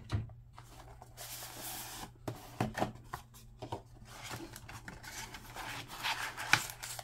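Cardboard trading-card hobby box being opened by hand: cardboard and its printed insert sliding and rubbing against each other, with scattered short taps and scrapes.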